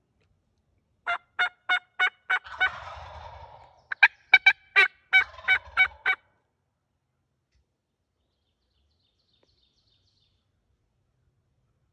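Wild turkey jakes gobbling and calling at close range: two runs of short, sharp notes about three a second, each broken by a denser rattling stretch, between about one and six seconds in.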